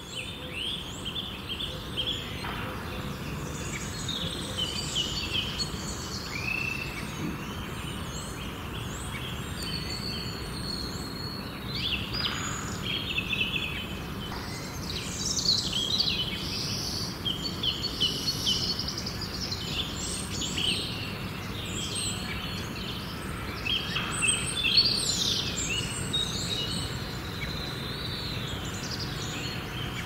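Garden birdsong: several small birds chirping and singing at once, many short overlapping chirps and trills, over a steady low background noise.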